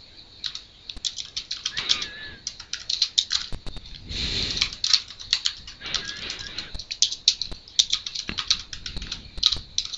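Computer keyboard being typed on: irregular runs of quick keystroke clicks with short pauses between them.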